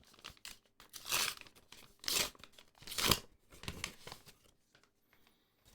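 Trading card pack wrapper being torn open and crinkled in the hands, in several short rustling bursts that die away near the end.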